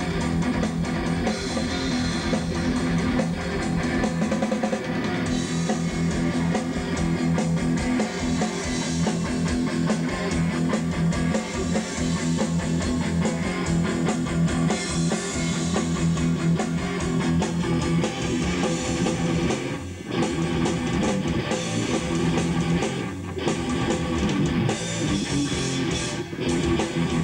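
Heavy metal band playing: electric guitar over a drum kit, continuous and dense.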